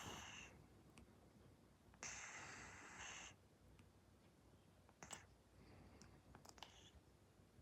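Persian cat snoring faintly in deep sleep: two hissing snore breaths, one ending just after the start and one about two seconds in, each lasting about a second, with a few faint clicks later on.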